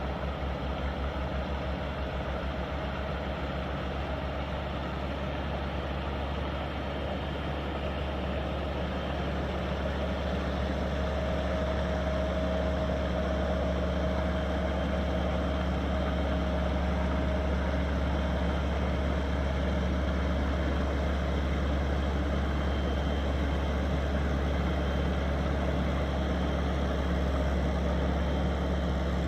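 Engine of an AVANT rubber-tracked compact loader running steadily, growing a little louder over the first ten seconds or so.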